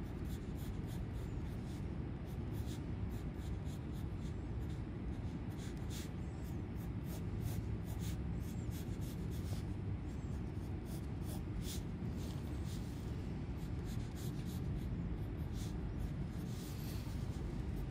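Pencil lead scratching on notebook paper in many short, quick strokes, several a second, as circles and outlines are drawn, over a steady low background rumble.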